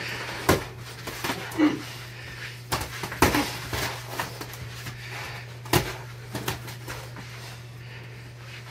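Boxing gloves thudding on bodies and headgear, with shuffling feet on foam mats, during a sparring exchange. There are about half a dozen irregular thuds, the loudest about three seconds in and near six seconds, over a steady low hum.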